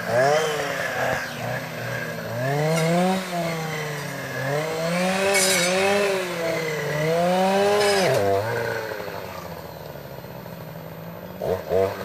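Two-stroke clearing saw (brush cutter) engine revving up and down over and over as its blade swings through brush. About eight seconds in it drops back to idle, then revs up again near the end.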